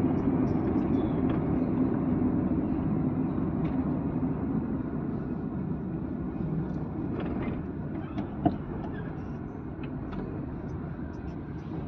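Steady road and engine rumble heard inside a moving car's cabin, slowly easing off, with one sharp click about eight and a half seconds in.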